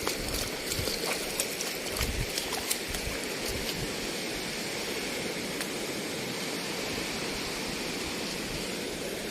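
Steady rush of sea water washing over a rocky tidal shore, with a few faint ticks in the first few seconds.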